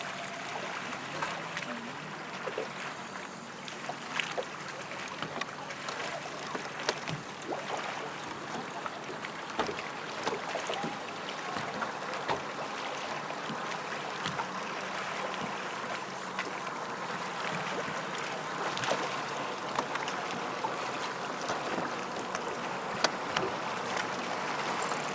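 Small waves lapping against the hull of a boat on a lake, with scattered small clicks and knocks.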